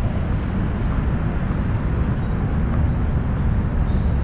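Steady low rumble of outdoor city noise, with faint regular footsteps on a concrete sidewalk.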